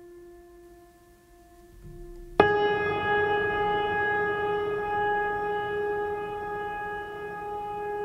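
Ambient background music: a held low drone, then about two and a half seconds in a sudden loud note with many overtones enters and rings on, slowly fading.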